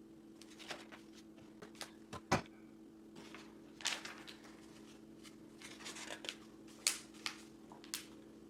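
Plastic LEGO Technic pieces clicking and tapping as they are handled and fitted together, in scattered short clicks with a few brief rustles, the sharpest click about two seconds in. A steady low hum sits underneath.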